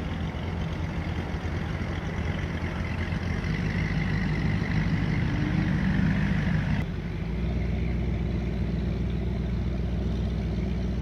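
An engine idling steadily, with its note changing about seven seconds in.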